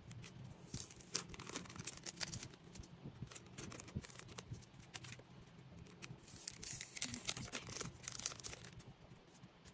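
Photocard pack wrappers being torn open and handled, crinkling and rustling with sharp crackles that come thickest about a second in and again around seven seconds in.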